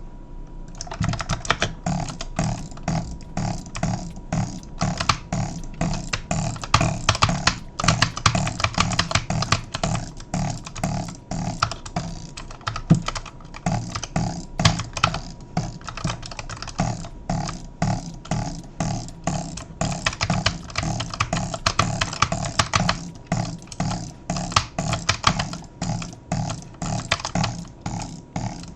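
Rapid, irregular clicking, several clicks a second, over a low pulsing hum, from around a vehicle's clutch.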